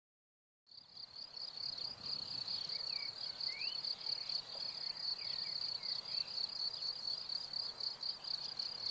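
Insects chirping in a steady, fast-pulsing high trill that fades in just under a second in, with a few faint short rising whistles about two to four seconds in.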